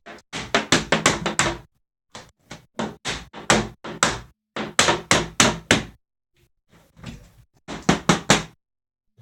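PVC window glazing beads being knocked into the frame over a new sealed glass unit: rapid runs of about six to eight sharp knocks each, with brief pauses between runs.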